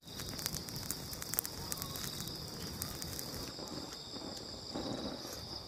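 Wood campfire crackling, with sharp snaps and pops that are thickest in the first few seconds, over a steady high-pitched chorus of night insects.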